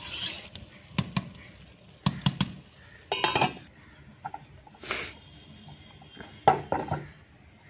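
Metal clinks and clanks as a ladle and a metal plate knock against a large metal cooking pot: a handful of separate sharp strikes, one of them ringing briefly.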